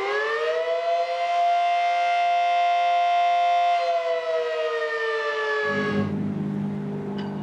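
Outdoor warning siren winding up, holding a steady pitch for a few seconds, then slowly winding down. About three-quarters of the way in, a lower steady drone starts up underneath it.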